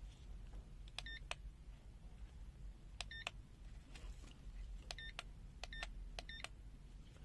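Faint clicks of an ANENG M119 multimeter's push-buttons being pressed, in pairs about four or five times, with a very short high beep from the meter's buzzer on the presses.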